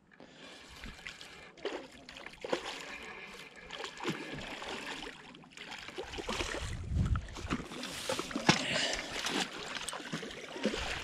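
A hooked channel catfish thrashing and splashing at the surface close to the bank while a spinning reel is cranked in. The splashing grows louder in the second half as the fish is brought to the landing net.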